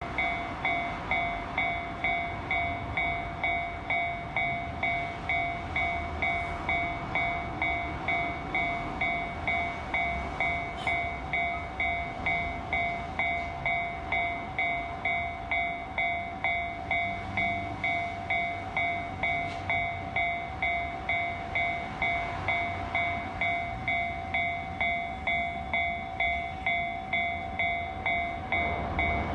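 Japanese railway level-crossing warning bell ringing, an evenly repeated electronic ding of about three strikes every two seconds, the signal that a train is approaching. Near the end the low rumble of the approaching freight train starts to rise under it.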